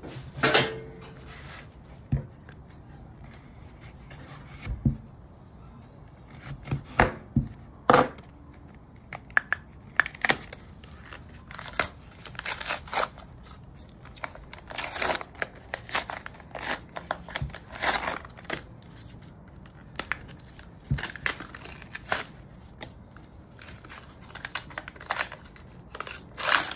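Cardboard and paper wrapper of a firework cake being torn and peeled off by hand, in many short, irregular rips and crinkles.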